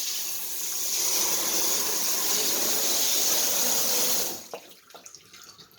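Water spraying steadily onto a dog being rinsed in a tub, shut off suddenly about four seconds in, leaving faint drips.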